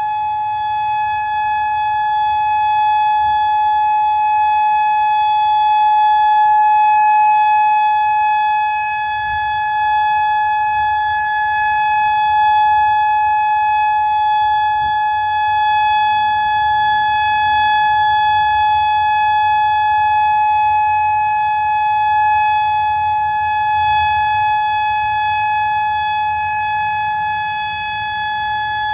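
Federal Signal Modulator 5020B outdoor warning siren sounding the Full Alert: a loud, steady tone held at one pitch, its loudness swelling and dipping slightly.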